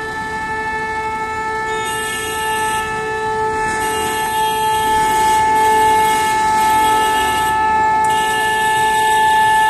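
Train horn held in one long, steady note without a break, over the noise of passing traffic.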